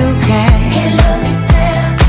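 Pop music with a steady dance beat, a kick drum about twice a second under sustained bass and melody notes.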